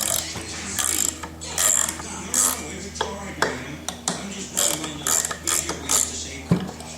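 Hand ratchet with a T25 Torx bit clicking in short, irregular bursts while working small Torx screws loose.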